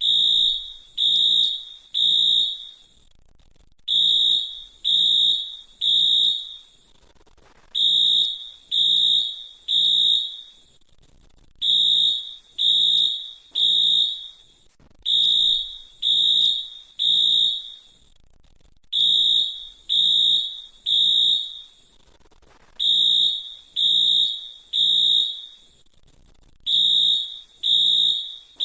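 Fire alarm beeping in groups of three high-pitched beeps with a longer pause after each group, repeating about every four seconds: the temporal-three evacuation pattern.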